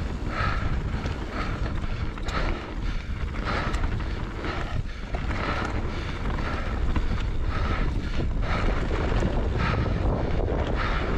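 Wind rushing over the microphone of a mountain bike rider's camera as the bike rolls down a dirt trail, with a steady low rumble and faint regular pulsing about every two-thirds of a second.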